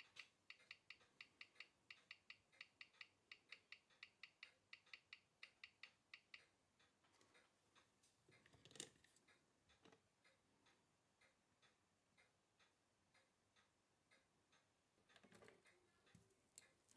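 Nomos watch's ETA 7001 hand-wound movement ticking fast and evenly, several ticks a second, as its escapement is picked up by a timegrapher microphone. The ticking is faint and fades out about six seconds in. A sharp knock follows near the middle, and there is brief handling clatter near the end.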